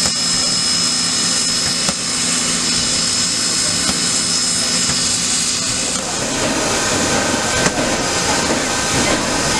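Nickel Plate Road 765, a 2-8-4 Berkshire steam locomotive, standing with a steady hiss and a high, even whine over a low hum. About six seconds in the sound changes to a rougher, busier hiss.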